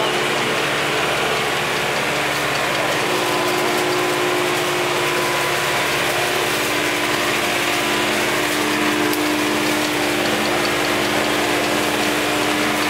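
Compact tractor engine running steadily with a constant hum as it drives along the row, with the mechanical clatter of its rear-mounted hydraulic cane cutter working through raspberry canes.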